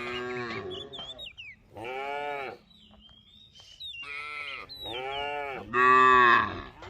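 Cattle mooing: a series of about five moos with gaps between them, the last one about six seconds in the loudest.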